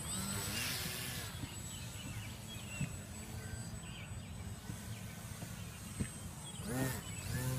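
Radio-controlled Cub model airplane flying past, its motor and propeller whine sweeping up and down in pitch as it passes and changes throttle, with the closest, loudest sweep near the end.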